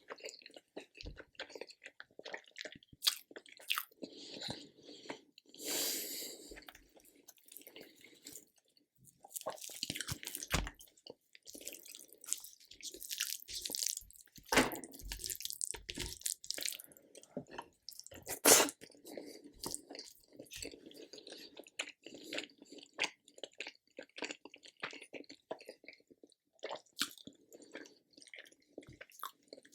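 Close-miked chewing and mouth sounds of a person eating, with irregular sharp clicks and a louder one about eighteen seconds in.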